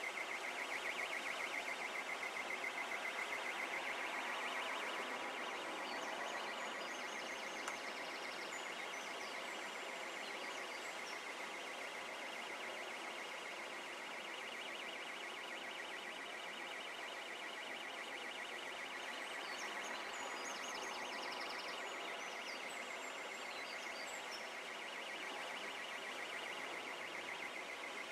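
A steady, high-pitched buzz, rapidly pulsing and alarm-like, over the rush of a river in flood. A few short high chirps come and go.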